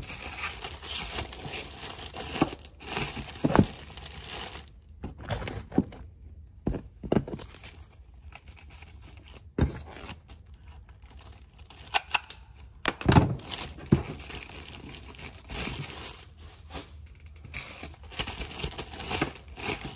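Plastic garment packaging crinkling and size-sticker backing peeling off as clothing is tagged by hand: irregular rustling with scattered clicks and a few short, louder rips.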